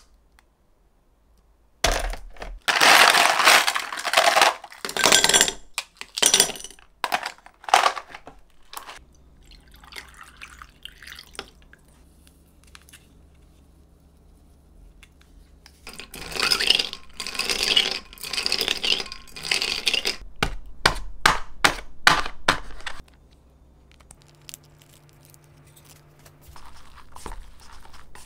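Round ice cubes being knocked out of a plastic ice-ball tray, clattering into a plastic storage box in a series of loud bursts. After a quieter stretch comes a second long run of clattering and clinking that ends in several sharp knocks.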